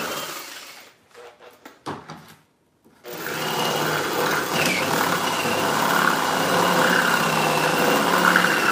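Cordless drill boring into bamboo with a steady high motor whine, reaming a drilled hole at an angle to widen its entry. It stops about a second in, a few small knocks follow as the work is repositioned, and it starts again about three seconds in and runs on.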